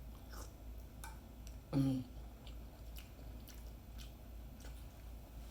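A person chewing a mouthful of food, with faint wet mouth clicks and one short vocal sound about two seconds in.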